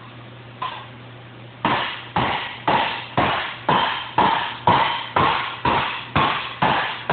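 Hand hammer striking a steel sheet-metal quarter panel over a hollow shaping dome, bumping the metal into shape: one blow, then from about a second and a half in a steady run of about two blows a second, each leaving a short metallic ring.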